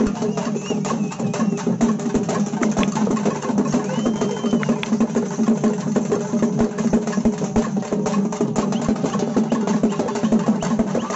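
Naiyandi melam folk band playing: fast, dense drumming over a steady low drone.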